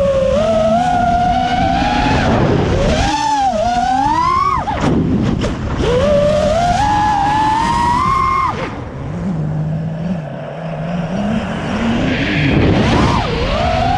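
Motors and propellers of an FPV racing quadcopter, heard through its onboard GoPro, whining at a pitch that rises and falls with the throttle. The whine cuts out sharply twice, about a third and about halfway through. It then sinks to a low hum for a few seconds before climbing again near the end.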